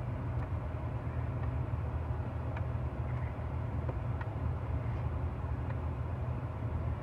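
HSV VF Clubsport R8's supercharged 6.2-litre V8 idling, a steady low hum heard from inside the cabin, with a few faint clicks.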